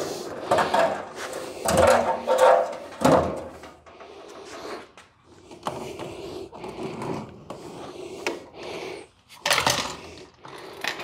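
Steel pickup-bed front panel being handled and set against the frame: a run of loud metal clunks and knocks in the first three seconds, quieter scraping and handling after, and another sharp knock near the end, over a faint steady hum.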